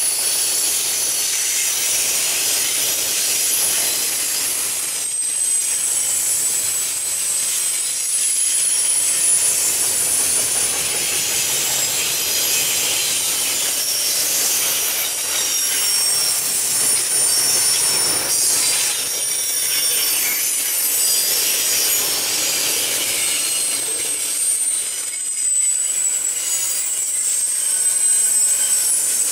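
Double-stack intermodal container cars rolling past at close range: a steady rush of steel wheels on rail, with thin, high wheel squeals that waver in pitch.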